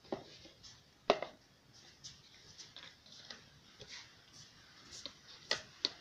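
Irregular light clicks and taps of two metal spoons on a wooden stick being handled and set onto a plastic bucket, with one sharper knock about a second in and two more near the end.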